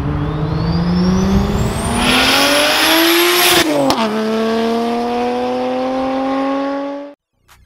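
Single-turbo BMW E90 335i's N54 straight-six accelerating hard, its pitch climbing through a gear with a high whine rising alongside. The pitch drops sharply at an upshift about three and a half seconds in and climbs again in the next gear, until the sound cuts off abruptly near the end.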